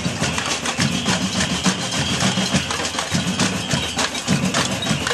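Cacerolada: a marching crowd banging pots, pans and lids in a dense clatter of metal clanks, over drumming on barrel drums. A high held tone sounds through most of it and stops about three and a half seconds in.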